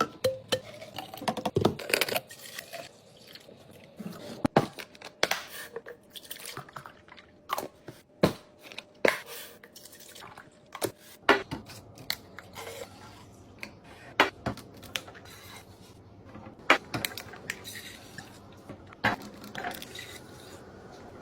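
Restocking handling sounds: packaged snacks and containers being picked up and set down, with crinkles and scrapes between irregular sharp taps and clicks.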